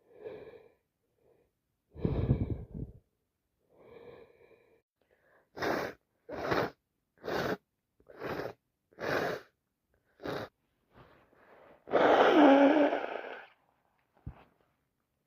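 A woman with a wet head cold breathes heavily, then takes six quick, sharp breaths in a row as a sneeze builds. About twelve seconds in she lets out one loud sneeze with her voice in it, the loudest sound here, followed by a brief sniff.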